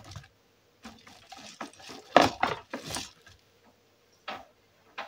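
Clicks and clatter of PC power and SATA cables being handled and plugged in inside a computer case, in short irregular knocks, the loudest about two seconds in.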